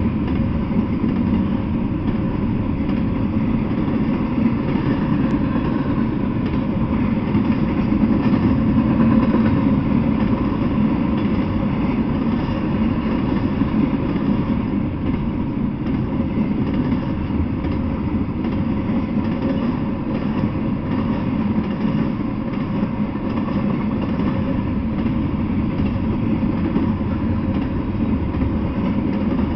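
Double-stack intermodal freight train rolling past at speed, a steady rumble of steel wheels on the rails.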